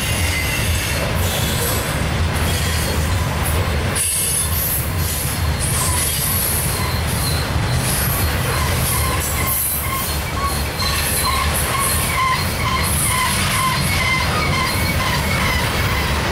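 Freight train of steel coal gondolas rolling past at close range, a steady rumble of wheels on rail. A faint wavering wheel squeal joins in about halfway through.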